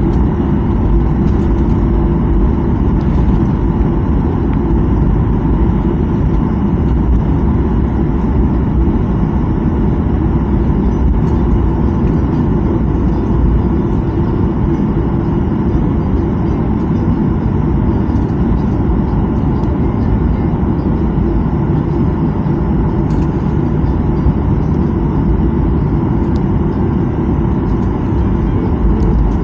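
Airliner jet engines running at steady taxi power, heard inside the cabin over the wing: an even, loud rumble with a faint steady whine.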